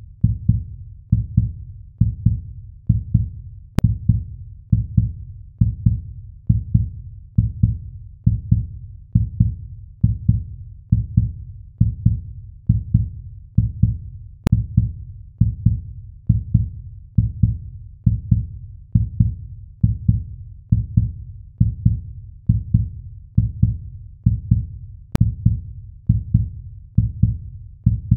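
Slow heartbeat sound effect: deep, even thuds repeating about once a second.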